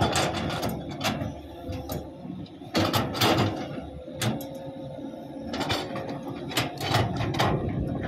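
Diesel engines of a Caterpillar D6G crawler dozer and a Hitachi 200 excavator running steadily, with sharp knocks and clanks from the working machines at irregular intervals, roughly one every second or so, some in quick clusters.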